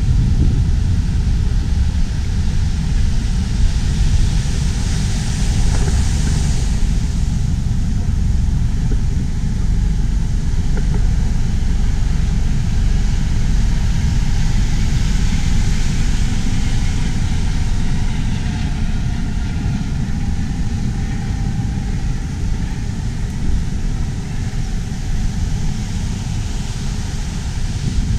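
Wind rumbling on the microphone, a steady low buffeting over a faint outdoor hiss.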